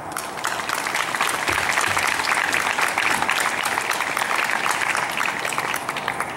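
Audience applauding, swelling within the first second and tapering off near the end.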